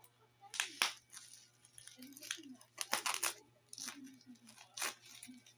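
Packaging being torn open by hand: several short, sharp rasping tears at irregular intervals.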